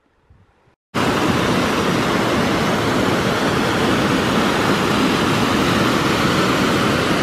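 Rushing water of a small mountain creek cascading over rocks, a steady loud rush that cuts in abruptly about a second in.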